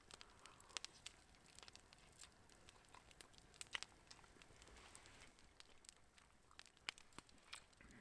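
Near silence, with faint scattered small clicks and rustling.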